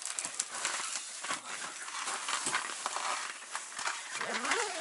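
Crinkly rustling with many small clicks, as of food wrapping and clothing being handled; a short rising vocal sound comes near the end.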